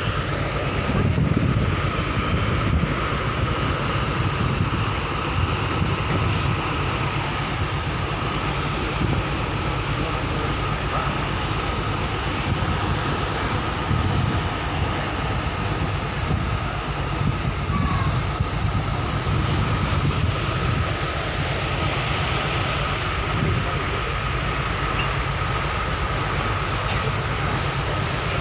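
Passenger ship's engines running steadily under way: a constant low rumble with a steady thin whine above it, over a rush of wind and churning water.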